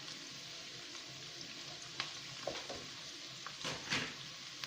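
Vegetables sizzling in a frying pan as they are stir-fried, with a spatula knocking and scraping against the pan several times in the second half.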